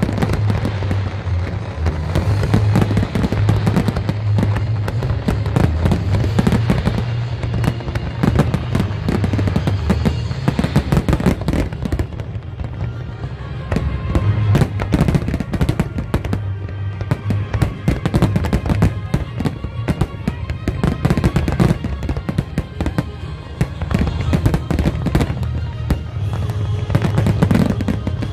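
A large fireworks display, with aerial shells and crackling effects going off in a rapid, unbroken string of bangs and crackles. Music plays under it.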